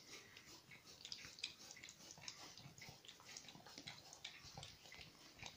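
Faint, quick wet licks of a dog's tongue on a plastic feeding board, several a second and irregular, as she licks up the last traces of her food.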